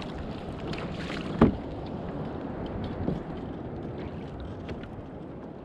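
Water lapping around a kayak with wind on the microphone, and one sharp knock about a second and a half in.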